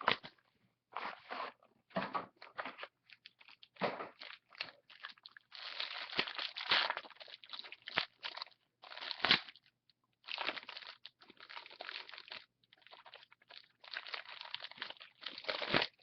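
A trading-card box and its packaging being opened by hand: paper and cardboard rustling and tearing in short, uneven bursts.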